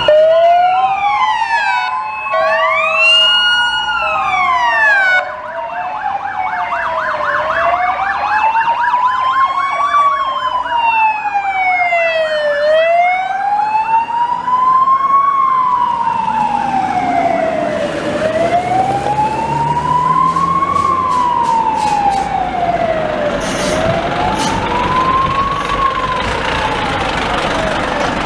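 Hungarian police vehicle sirens sounding as a column of police cars drives past. For the first few seconds several sirens wail over each other. Then one slow wail rises and falls about every five seconds, over the rumble of the passing vehicles.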